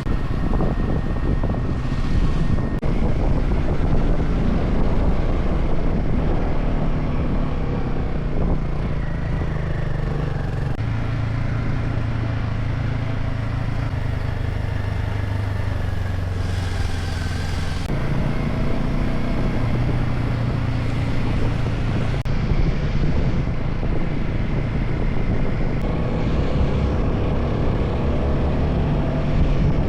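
Off-road motorcycle engine running while riding, its pitch shifting with the throttle and holding a steadier note for several seconds about midway.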